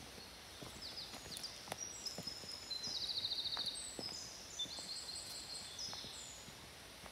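Songbirds singing in woodland: a run of short, high, clear phrases with a fast trill about three seconds in. Faint footsteps crunch on a dirt forest path underneath.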